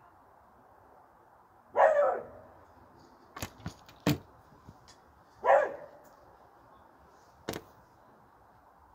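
A dog barks twice, about four seconds apart, each bark short. Between and after the barks come a few sharp clicks and knocks.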